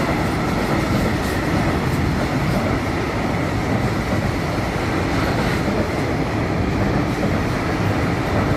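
Container freight train wagons rolling past: a steady rumble and rattle of steel wheels on the rails.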